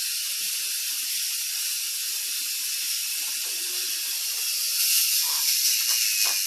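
Small K'nex battery motor running the crane's winch, a steady high-pitched hissing whir that switches on with the button press. It is straining under a load of wheels that is too heavy for it.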